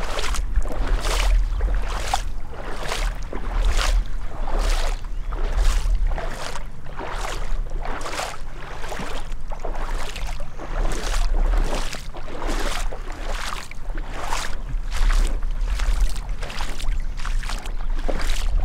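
Gumboots wading through shallow floodwater: a steady rhythm of splashing, sloshing footsteps, a little more than one a second.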